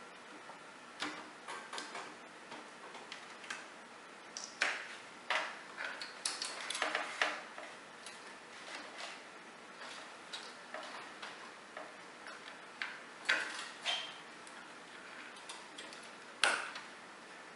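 Computer drive data cables being handled, their plastic connectors giving irregular sharp clicks and rattles, some in quick clusters, with one louder click near the end.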